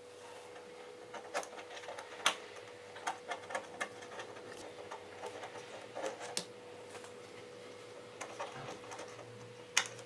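Small neodymium magnetic balls clicking against each other as strips of them are pushed and bent into shape: irregular sharp clicks, with a louder snap near the end.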